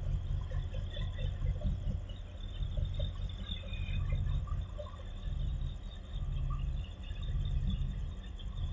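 Outdoor night ambience: a steady low rumble that swells and dips, with faint scattered chirps of crickets or other insects above it.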